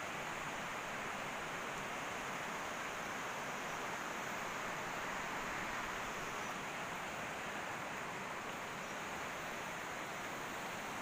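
Steady rushing of a shallow river flowing over a stony bed and small rapids.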